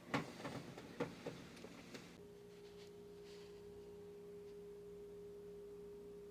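A few light clicks and knocks, then about two seconds in a steady, pure, unwavering tone begins and holds, over a faint low hum.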